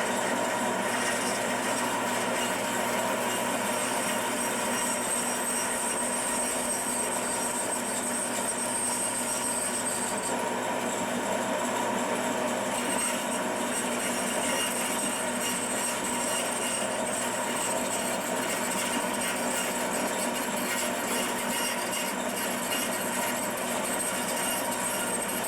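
Electric power tool running steadily while spiral glue grooves are cut into wooden dowels, its level even throughout with no starts or stops.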